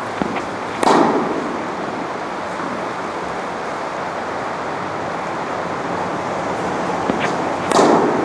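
Two tennis balls struck with a racket, about seven seconds apart, each a sharp pop with a short echo off the indoor hall, over a steady background hiss.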